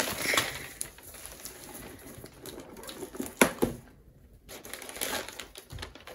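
Gift wrapping paper and a cardboard box being handled and opened: light rustling and small taps, with a couple of sharper clicks about three and a half seconds in.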